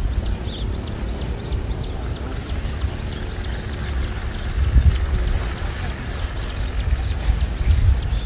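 Wind buffeting the microphone: a low rumble that swells in gusts about halfway through and again near the end. Faint bird chirps come through above it, and a thin steady high tone joins about two seconds in.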